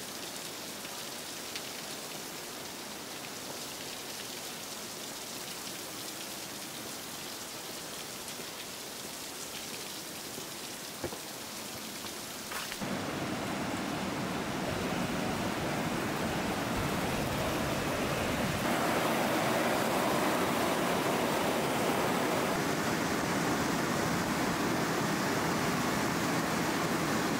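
Steady rush of fast water in a steep river gorge. It becomes clearly louder and fuller about 13 seconds in.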